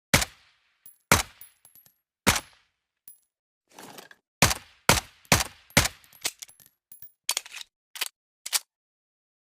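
Suppressed M1911 pistol shots: three single shots about a second apart, then a quick string of four about half a second apart, then a few more spaced out, with light metallic clinks after the first shots.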